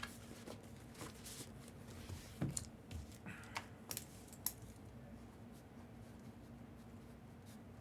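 Faint scattered clicks and short rustles of packaging being handled, mostly in the first four seconds or so, over a steady low electrical hum.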